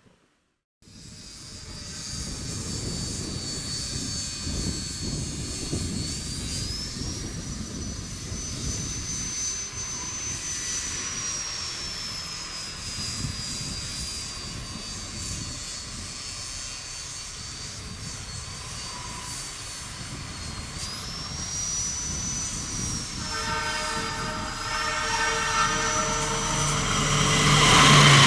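An approaching train, its rumble growing louder toward the end, with a high whine rising and falling over it; about two-thirds of the way in a multi-tone horn starts and holds as the train nears.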